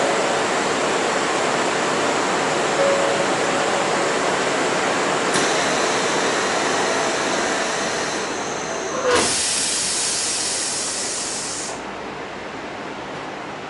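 Steady noise inside a Kyoto Municipal Subway 20 series car. About nine seconds in comes a click, then a loud hiss of escaping compressed air lasting about three seconds that cuts off sharply.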